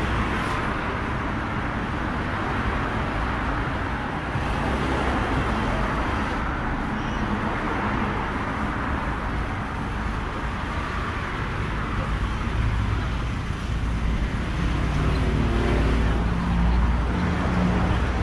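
Steady road traffic on a busy high street, with cars running past close by. In the last few seconds a heavier engine hum with a clear pitch builds up, as a larger vehicle comes past.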